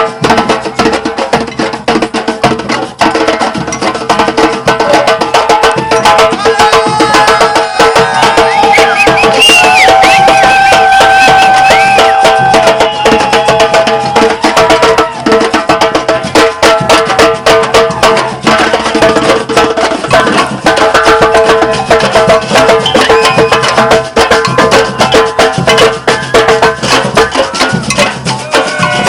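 Batucada percussion ensemble playing: dense, continuous samba drumming.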